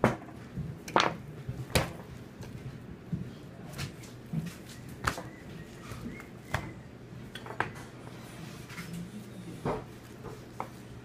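Butcher's knife work while boning a leg of lamb: irregular sharp clicks and knocks of the knife and meat on a cutting board, over a steady low hum.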